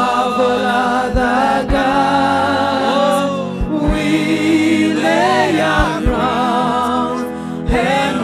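Worship song: several voices singing together over band accompaniment, with low thumps now and then.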